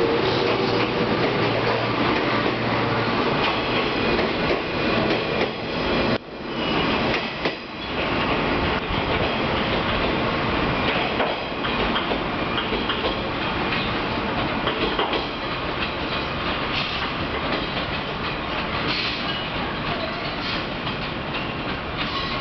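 JR 415-series electric multiple unit pulling out of the station, with wheels clacking over rail joints and motor hum in the first few seconds. The sound slowly fades as the train draws away.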